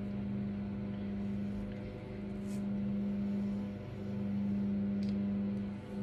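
A steady low droning tone with overtones above it, dipping briefly about four and six seconds in, with a few faint ticks over it.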